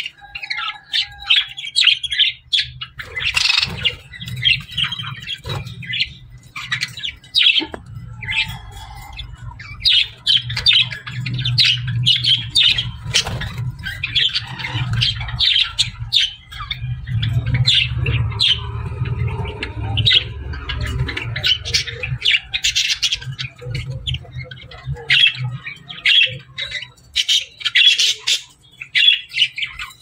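A flock of budgerigars chattering together: a constant stream of many overlapping short chirps and warbles, with a low hum underneath for most of it.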